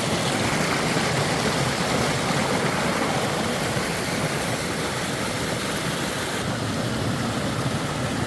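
Floodwater from heavy rain rushing through a swollen drainage channel, a steady loud rush; the hissing top of it drops a little about six and a half seconds in.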